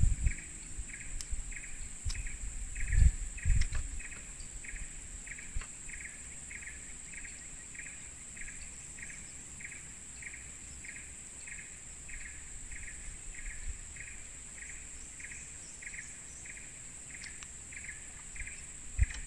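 Tropical forest insects: a steady high-pitched buzz under a rhythmic chirp repeating about three times a second. A few low thumps of handling come in the first four seconds.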